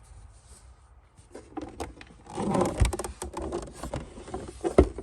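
Handling noise from taking apart a plastic speaker housing: clicks and scraping, with two sharp knocks, one about three seconds in and one near the end.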